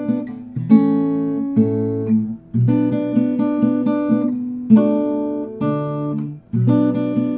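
Acoustic guitar played with the fingers: a slow instrumental tune of picked chords, a new chord struck about every two seconds with single notes picked and ringing between.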